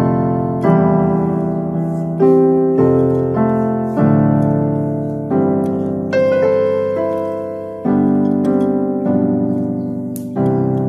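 Electronic keyboard playing slow piano-voice chords in F sharp with both hands, a new chord struck about every second and left to ring and fade.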